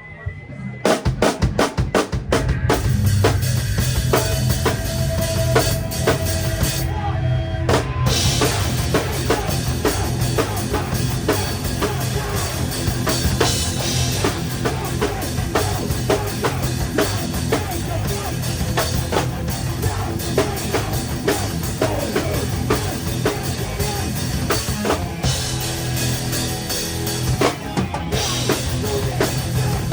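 Live rock band starting a song, the drum kit loudest and closest: a quick run of drum hits about a second in, then kick, snare and cymbals driving steadily under the guitars and bass.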